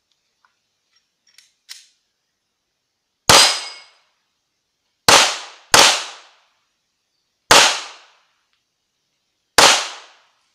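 Pistol shots fired during an IPSC course of fire: five single shots at an uneven pace, two of them in a quick pair, each trailing off briefly. Two faint clicks come before the first shot.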